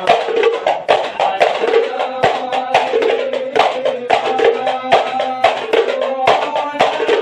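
Hadrah ISHARI ensemble: hand-struck frame drums (terbang) beating a fast, dense rhythm with hand-claps, under a chorus of men's voices chanting in unison.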